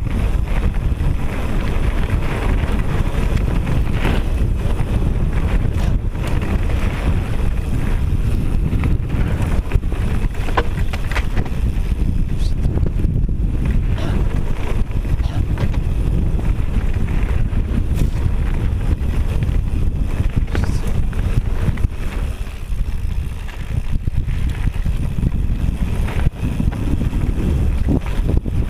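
Wind buffeting the microphone of a mountain bike descending a rocky gravel trail, over the rumble of the tyres and the rattle of the bike on stones. Occasional sharp clicks and knocks ride on top.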